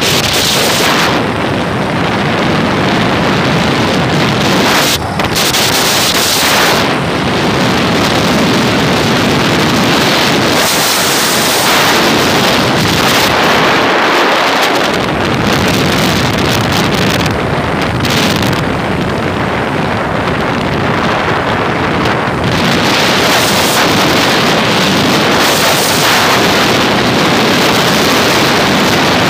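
Loud, steady rush of wind buffeting the microphone of a phone held out on a moving motorbike.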